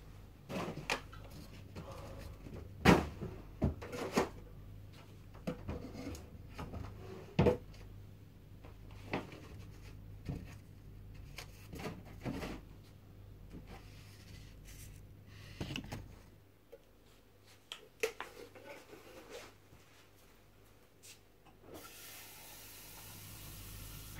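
Household objects being handled and set down: a run of knocks, clicks and rubbing, loudest about three seconds in. It goes quieter about two-thirds of the way through, then a steady hiss starts about two seconds before the end.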